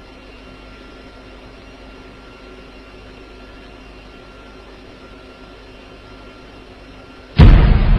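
Steady faint hiss and hum of recording background noise, with a few faint steady tones. Near the end a sudden loud burst of noise cuts in.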